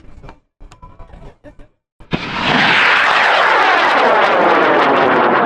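An M-class high-power rocket motor (an M1419) ignites about two seconds in with a sudden loud roar. It then burns at a steady full roar whose tone sweeps downward as the rocket climbs away.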